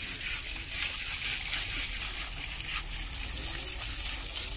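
Water from a garden hose spraying onto an elephant's hide and splashing onto wet concrete: a steady hiss.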